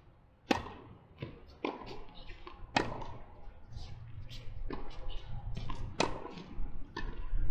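Tennis balls struck by rackets and bouncing on a hard court during a doubles rally. It opens with a sharp pop about half a second in as the serve is hit, followed by further pops of racket hits and ball bounces every second or so.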